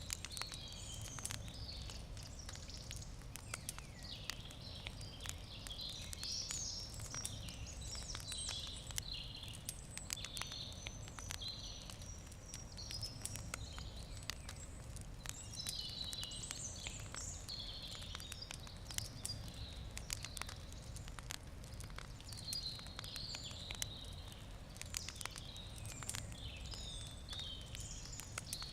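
Wood campfire crackling, with frequent small sharp pops, while songbirds sing in the background.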